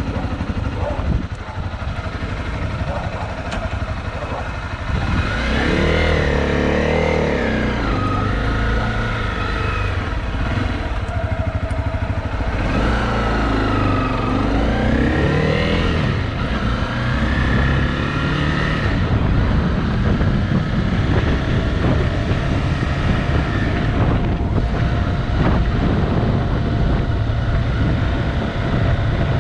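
Motorcycle engine riding along, revving up and dropping back several times as it shifts through the gears.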